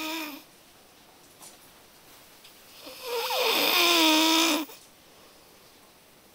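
A person snoring loudly. One snore trails off right at the start, and after a pause a single long snore comes about three seconds in and lasts nearly two seconds, a steady buzzing tone over a breathy hiss.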